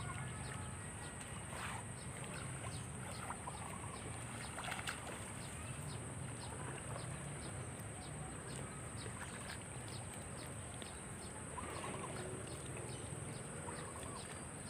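Water sloshing and splashing as a man wades and scoops a hand net through shallow muddy water, with a few faint bird chirps over a steady high-pitched whine.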